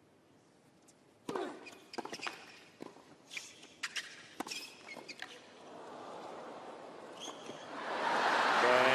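Tennis rally: the ball is struck back and forth by rackets, with sharp hits every half second or so. Then crowd noise swells and breaks into loud cheering near the end.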